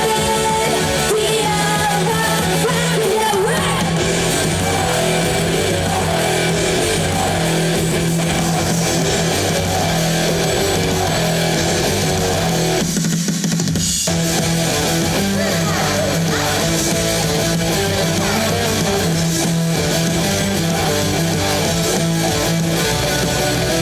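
Loud live concert music: a rock-style song with electric guitar, drums and singing, with a short drop-out in the bass about 13 seconds in.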